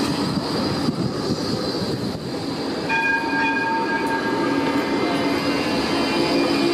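Bombardier Flexity 2 tram passing close by at low speed on street track, its wheels and running gear giving a steady rumble. A high tone sounds for about a second and a half around three seconds in, and a steady hum comes in near the end.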